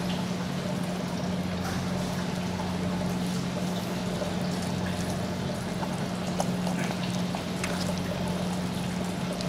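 Steady low hum over an even hiss of room noise, with a few faint soft clicks of handling.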